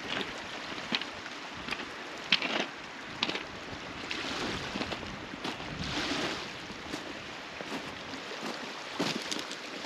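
Water sloshing and splashing, with two louder washes in the middle, and scattered sharp clicks and knocks.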